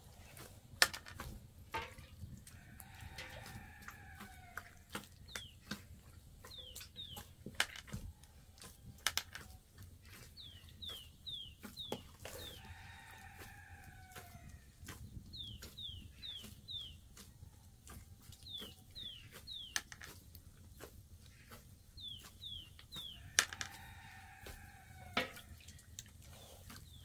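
A rooster crows three times, about ten seconds apart, each crow lasting about a second and a half. Between the crows a small bird chirps in quick runs of three or four falling notes, over the sharp crackles and pops of a wood fire.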